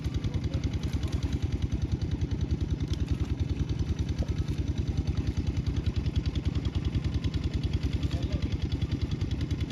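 Small engine idling with a fast, even chugging pulse.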